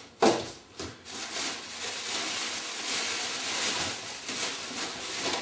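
Plastic wrapping bag crinkling and rustling as it is pulled off a new engine in its box, after one sharp knock about a quarter second in.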